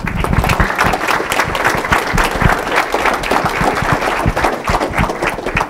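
Audience applauding, many pairs of hands clapping at once in a dense, steady patter that welcomes a speaker.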